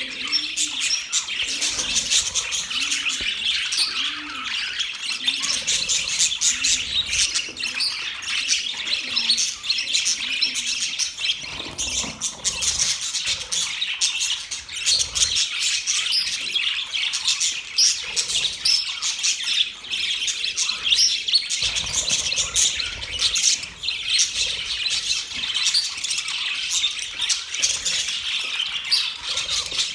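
Many small birds chirping and twittering over one another without pause, in short, high, overlapping notes with occasional squawks. For the first several seconds a low cooing call repeats about twice a second underneath, as from a dove.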